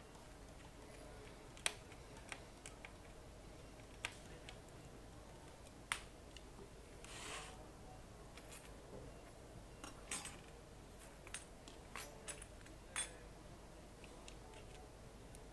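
Small clicks and taps of plastic laptop parts being handled as a Thinkpad T500's display assembly is fitted back onto its base, a dozen or so scattered single clicks with a short rustling slide about seven seconds in.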